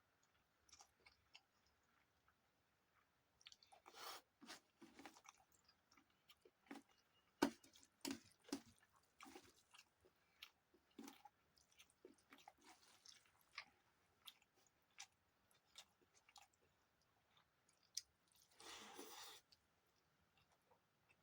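Close-miked mouth sounds of a person eating rice and dalma: irregular wet chewing, smacking and small clicks, with a noisier sound about a second long near the end.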